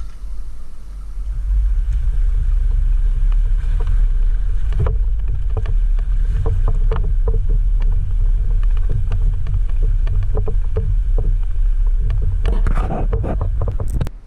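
Low rumble of a Jeep JL Rubicon driving a rough off-road trail, with scattered knocks and rattles from about five seconds in and a burst of them near the end. It cuts off sharply just before the end.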